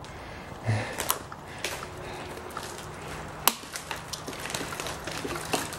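Dead standing tree trunk creaking and crackling as it is rocked back and forth by hand, with a sharp crack about three and a half seconds in: the wood giving at a weak point but not yet breaking.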